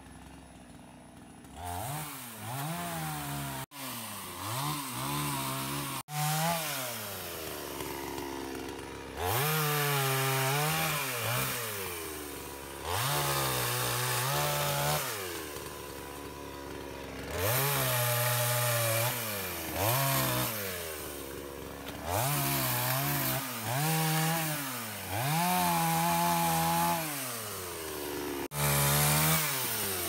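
Gasoline two-stroke chainsaw cutting branches off a felled tree, revving up to full throttle and dropping back to idle about eight times, each rev held for a second or two.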